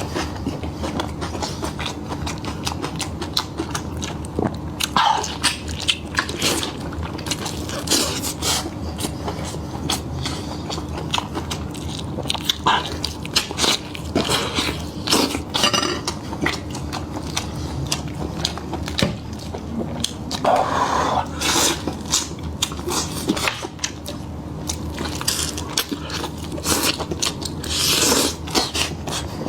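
A person biting and chewing meat close to the microphone, with many irregular crunchy clicks and wet chewing sounds throughout.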